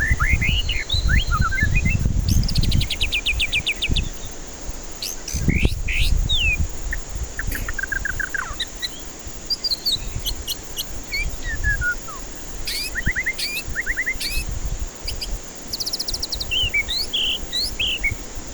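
White-rumped shama (murai batu) singing a varied song of clear whistled slurs and fast rattling trills, in short phrases with brief gaps between them. A low rumble comes in under the song at the start and again about five seconds in.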